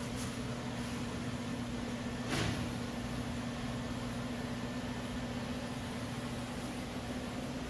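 Steady workshop hum over an even background hiss, with one brief knock about two and a half seconds in.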